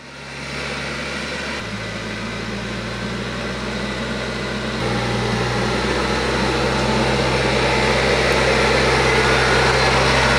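TYM T474 compact diesel tractor running steadily under load as it pulls a land plane through loose dirt, growing louder as it comes closer.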